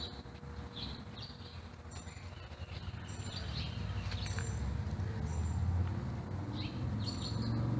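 Small songbirds chirping: short high chirps and thin, very high double notes, repeated about once a second, over a steady low rumble.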